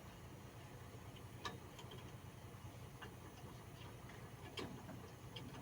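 A handful of faint, irregular clicks and light knocks, about six in all, over a low steady hum: parts and tools being handled during removal of a truck clutch.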